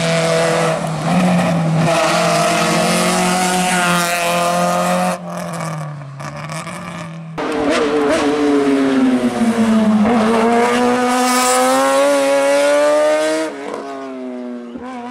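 Hill-climb race car engines at high revs, heard in several short clips that cut suddenly from one car to the next. First one engine holds steadily high. After a cut another engine drops in pitch and then climbs again as it accelerates away.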